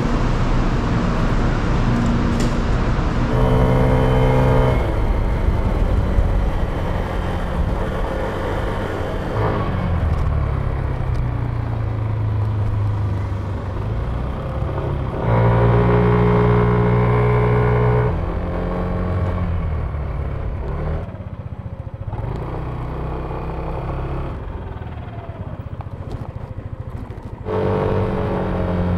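Yamaha Cygnus Gryphus scooter's single-cylinder engine pulling away and easing off several times, its note rising and falling in pitch, over steady road and wind noise. The first few seconds are a dense rumble without an engine note.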